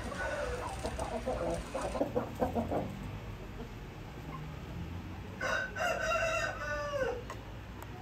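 Parrot Beak Aseel chickens calling: a few short clucks, then about five seconds in a rooster crows once, a crow of about two seconds that drops in pitch at its end.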